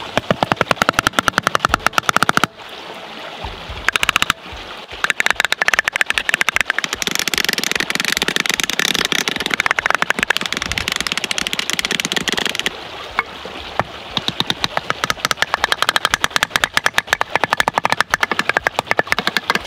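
Wooden baton knocking on wood in rapid repeated blows, a few a second: first driving a carving tool into a log, then pounding a log head down onto its stick handle to make a mallet. The strikes break off briefly twice in the first five seconds and ease off for a moment in the middle.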